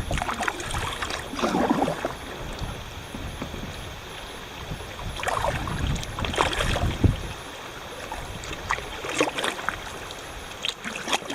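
Kayak paddling on the river: paddle blades dip and splash at irregular intervals over the steady rush of water running through a rocky shallow stretch.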